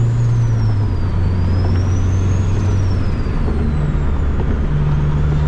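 Turbocharged K-series four-cylinder of a 2007 Honda Accord running at part throttle, a low steady drone that drops slightly about a second in and climbs again near the end. Over it the turbo's high whine rises and falls twice as the throttle comes on and off, without going into a full pull.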